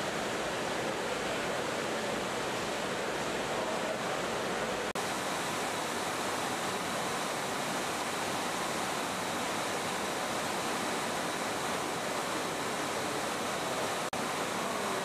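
Steady, even rushing hiss with no tone or rhythm. It drops out for an instant about five seconds in and again near the end.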